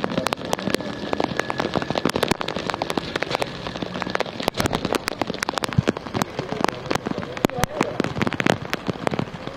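Rain falling, with many sharp, irregular drop hits close by over a steady hiss.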